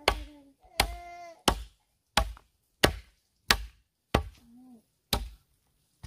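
Chopping with a blade: about eight sharp blows at a steady pace, one roughly every two thirds of a second, with a slightly longer gap before the last.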